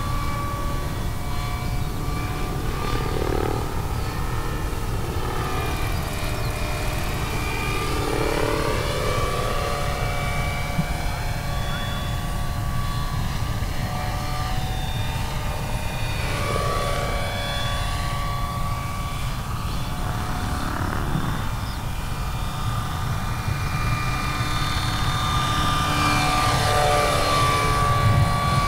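Vario Airwolf electric scale RC helicopter in flight: a steady multi-tone whine from its electric drive over a low rumble from the rotor. The pitch slides up and down as it passes back and forth, and the sound grows louder near the end as it sweeps in low.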